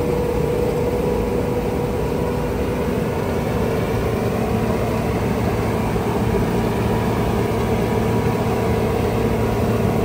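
Diesel engine of a large farm machine running steadily: a constant low drone with a steady whine over it.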